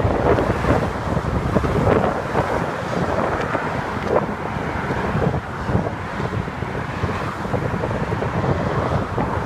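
Wind blowing hard across the microphone of a moving bicycle, with the steady rush of car traffic passing on the bridge roadway alongside.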